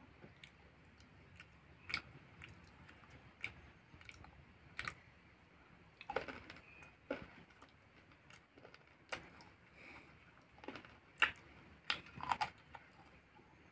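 Close-up eating sounds of a person chewing rice and chicken curry eaten by hand: irregular soft clicks and mouth smacks at an uneven pace.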